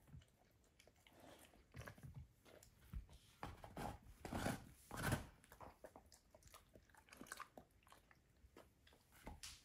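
A dog gnawing a lamb bone: irregular runs of crunching bites, loudest about halfway through, then a quieter stretch of a few seconds before it bites again near the end.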